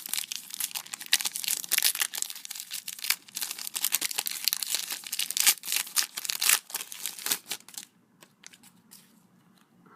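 Crinkling and tearing of a foil trading-card pack wrapper being opened and handled, with cards handled among it. It stops about eight seconds in, leaving a few faint ticks.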